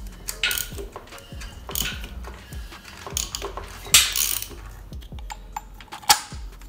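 Socket ratchet clicking in several strokes as it turns the crankshaft pulley bolt of a Honda Civic Type R engine by hand, to bring the engine round to its timing marks.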